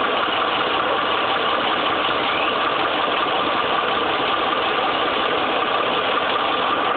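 Ford F-150's 5.4-litre three-valve V8 running steadily, with a rough, diesel-like clatter. The owner suspects the variable cam timing system (VCT solenoids and cam phasers), which keeps logging camshaft position sensor codes.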